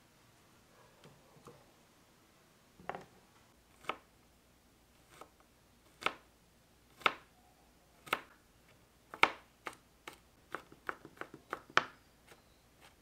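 Chef's knife chopping garlic cloves on a cutting board: sharp knocks of the blade on the board about once a second, then a quicker run of chops near the end.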